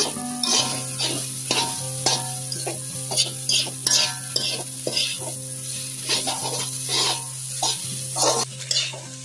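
Metal spatula scraping and tossing fried rice around a wok, about two strokes a second, over a steady sizzle of frying.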